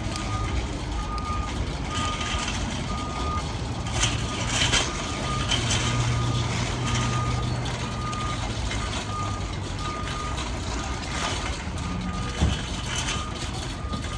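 A vehicle's reversing alarm beeping at an even pace, a little faster than one beep a second, over a low engine rumble. There are a couple of sharp knocks.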